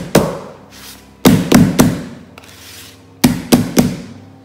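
A square metal cake tin full of sponge batter being tapped down hard on the table to settle the batter: sharp knocks with a brief ring, one just after the start, then two quick sets of three about two seconds apart.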